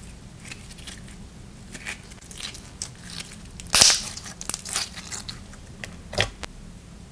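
Slime being squeezed and pressed by hand, giving a run of short crackling pops and clicks; the loudest cluster comes a bit under four seconds in, with another sharp pop about six seconds in.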